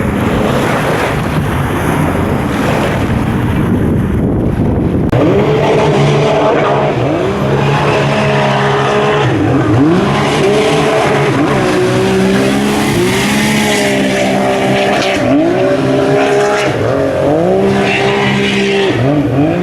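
Jet ski engines revving, their pitch dropping and climbing again and again as the throttle is cut and reopened. The first few seconds are mostly wind and water noise before the engine note comes through.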